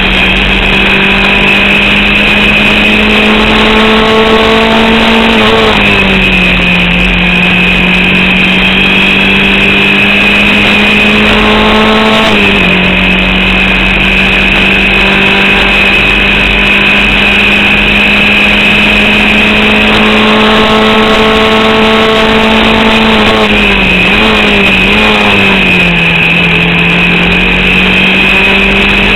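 In-car sound of a Formula Vauxhall 8v single-seater's four-cylinder engine running hard. Its note climbs slowly, then drops sharply about six and twelve seconds in, and wavers down around twenty-four to twenty-six seconds, as at gear changes or lifts. The engine is misfiring and losing power to an alternator/battery fault.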